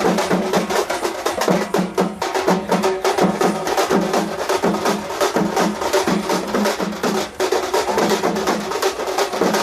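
Festival drum ensemble playing a fast, driving rhythm: rapid stick strikes over a low drum note that repeats about twice a second.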